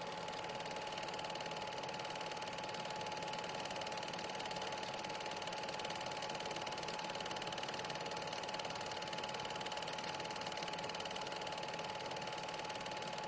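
Super 8 film projector running: a steady mechanical whirr with a constant whine.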